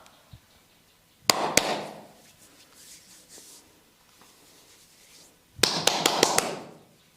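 Hands tapping and slapping on the body in percussive massage strokes: a quick pair of strikes about a second in, then a rapid run of five or six strikes near the end.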